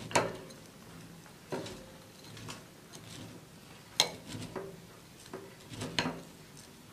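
Metal spoon mixing ingredients in a glass bowl, clinking and scraping against the glass with a handful of separate sharp clinks. The loudest come right at the start, about a second and a half in, about four seconds in and about six seconds in.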